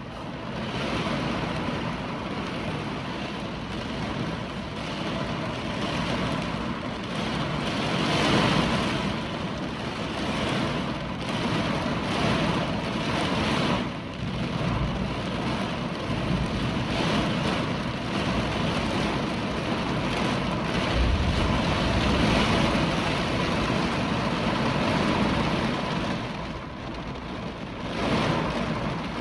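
Hurricane wind and heavy rain: a loud, steady rushing that swells and eases every few seconds in gusts.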